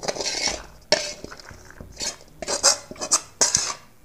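Metal spoon scraping and clinking against the inside of an aluminium pot as chicken biryani is scooped and tipped out. It comes as a series of short scrapes and knocks.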